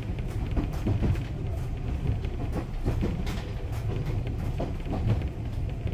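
Local train heard from inside the car while it runs: a steady low rumble of wheels on the rails, with irregular clicks and rattles.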